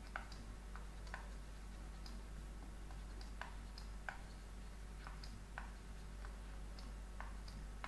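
Faint, irregular taps of a stylus on a tablet screen during handwriting, roughly one or two clicks a second, over a low steady hum.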